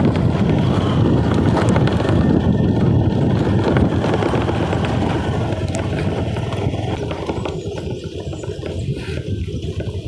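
Vehicle riding slowly down a steep hill road, with brakes held against the slope: a steady rush of road and wind noise, easing a little after about seven seconds.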